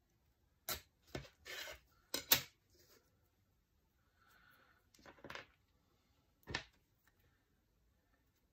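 A metal ruler and washi tape being handled on a wooden desk: a quick series of short clicks, scrapes and rustles, the loudest clack about two seconds in, as the tape is torn along the ruler's edge and the ruler is lifted away and set down.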